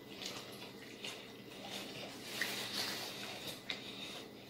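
Close-miked chewing of fries, with wet mouth smacks and small clicks at irregular intervals.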